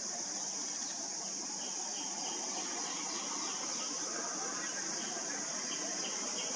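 Short, high chirps repeated in irregular runs, a black-collared starling chick begging for food, over a steady high-pitched insect drone that is the loudest sound throughout.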